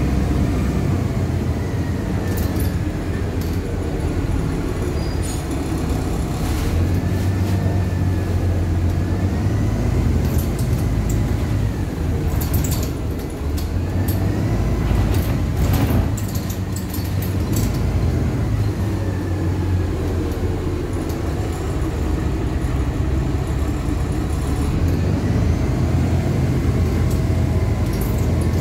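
LiAZ-5293.60 city bus under way, heard from inside the cabin: a steady diesel drone with a faint whine that rises and falls several times as the bus speeds up and slows. There are a few short rattles or knocks, most clearly around the middle.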